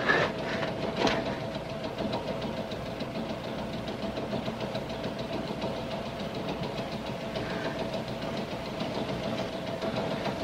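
Subway train car running along the track: a steady rumble with a constant whine through it, and two sharp clicks of the wheels in the first second or so.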